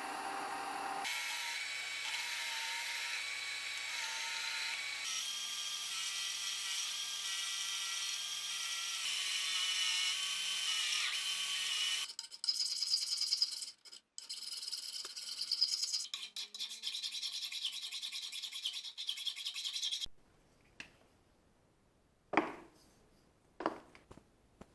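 Scrubbing and rubbing on the metal axe head, steady for the first half, then in choppy strokes, followed by a few sharp knocks near the end.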